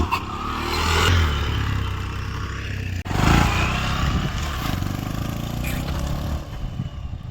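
A motor vehicle's engine running steadily at low revs, with a sharp knock about three seconds in and some clattering.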